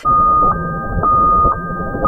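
Ambulance siren in a hi-lo two-tone pattern, switching between its two pitches about twice a second over a low rumble.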